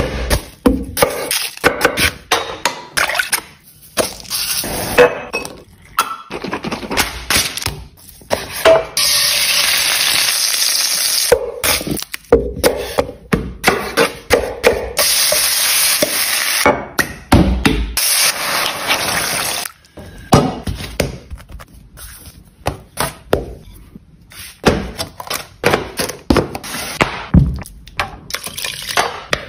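A fast-cut run of food-preparation sounds: sharp knocks, taps and clinks of hands and utensils at the counter and on a wooden chopping board. In the middle comes a steady hiss lasting several seconds, broken once, and near the end a quick run of short sharp strokes.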